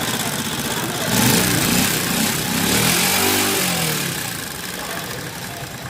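Shineray Bravax motorcycle engine running. It is revved up about a second in, then falls back toward idle over the next few seconds. The bike has what its mechanic calls a strange noise.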